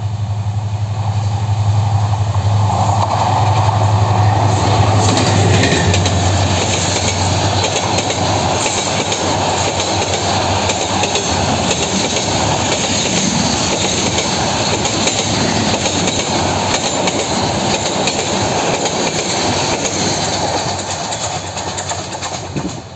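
Bangladesh Railway intercity express train passing close at speed: a diesel locomotive's steady low hum for the first six seconds or so, then the coaches rolling past with a continuous rumble and clickety-clack of wheels over rail joints. The sound eases off near the end as the last coach goes by.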